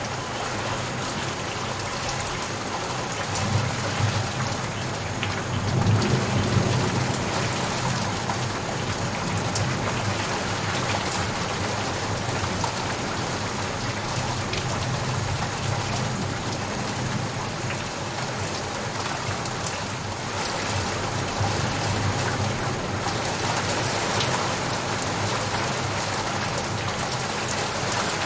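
Steady heavy rain falling. A low rumble swells a few seconds in and again near the end.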